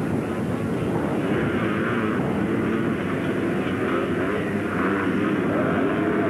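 Several racing ATV engines running at once, their pitches rising and falling as the machines accelerate and pass.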